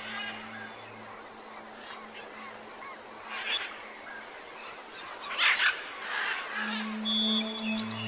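Rainforest ambience: an even hiss like steady rain under bird calls, with a louder call about five and a half seconds in and quick whistled glides near the end. A low, sustained music drone fades out about a second in and comes back for the last second and a half.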